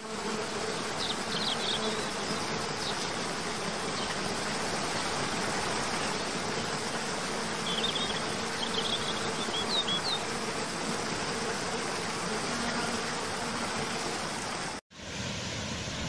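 Waterfall cascading over rock tiers, a steady rushing of water, with a faint low buzz under it and a few short high bird chirps about a second in and again around eight to ten seconds. The sound cuts out for an instant near the end and rushing water resumes.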